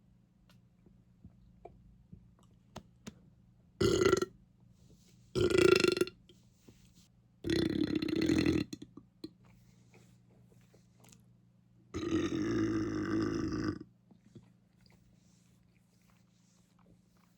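A person belching four times, deep and pitched, a second or two apart. The last burp is the longest, nearly two seconds.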